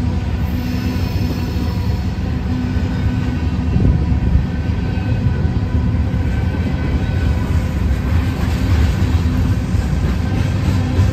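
Freight train's covered hopper cars rolling past at a level crossing: a steady, heavy rumble of steel wheels on rail.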